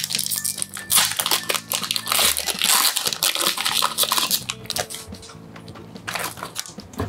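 Foil wrapper of a Pokémon booster pack being torn open and crinkled as the cards are pulled out, a dense crackle that is strongest for the first few seconds and then thins out.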